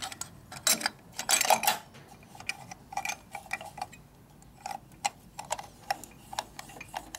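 Small metallic clicks and taps as the chrome cover of a Harley-Davidson Knucklehead ignition timer and its clamp are handled and seated by hand. The clicks come irregularly, several a second, with a louder cluster about a second in.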